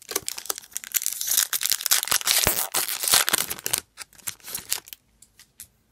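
Foil wrapper of a hockey card pack being torn open and crinkled by hand: a dense crackle for nearly four seconds, then a few scattered crinkles.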